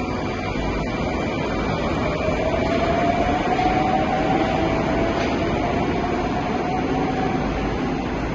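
Moscow Metro train pulling out of the platform: a steady rumble with a motor whine that rises slightly in pitch, loudest about three to four seconds in, then easing off as it moves away.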